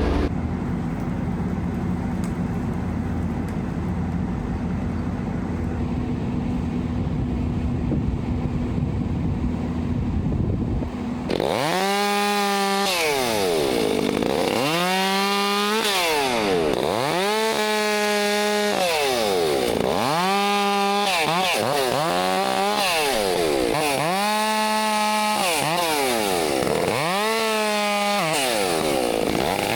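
A steady machine hum gives way, about eleven seconds in, to a chainsaw revving up to full throttle and easing off again, over and over, every two to three seconds.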